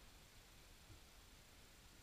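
Near silence underwater: a faint low rumble and hiss, with one soft low bump about a second in.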